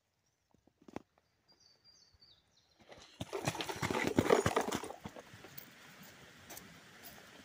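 Footsteps crunching through dry fallen leaves as a hiker with a backpack walks past close by, starting about three seconds in, loudest around four seconds and fading out by five. A brief high chirp comes about two seconds in.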